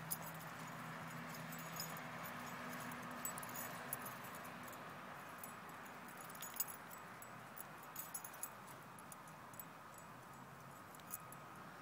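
Faint outdoor background noise with scattered light clicks and jingles. A low steady hum fades out about four and a half seconds in.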